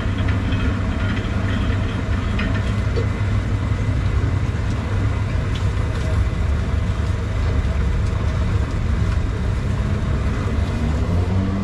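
Motor-driven sugarcane juice crusher running with a steady low hum while cane is fed through its rollers.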